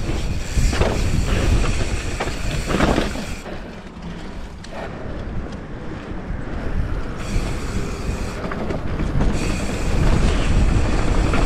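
Commencal Clash mountain bike ridden fast down a dirt trail: tyres rumbling over the ground and the bike rattling and clattering over bumps.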